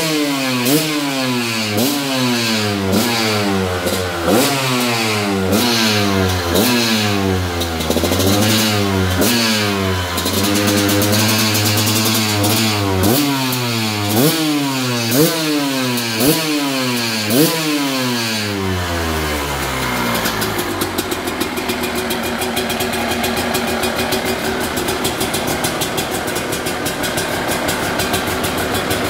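Two-stroke dirt bike engine revved in a long series of quick throttle blips, its pitch shooting up and falling back about once a second. From about 20 seconds in, it settles to a steady idle.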